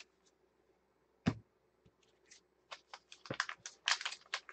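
2016 Gypsy Queen baseball cards being handled and laid down on a table: one sharp click about a second in, then a quick run of clicks and slaps in the second half.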